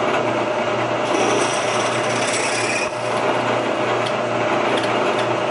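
Letter A (0.234 in) twist drill in a machine spindle cutting through the steel AK receiver into the front trunnion, the spindle motor running slowed down with a steady hum under a scratchy cutting noise. A brighter, hissing cut comes from about one to three seconds in.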